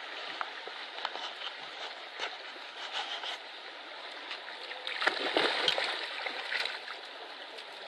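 Water splashing and gurgling, with many small irregular splashes, a little louder about five seconds in.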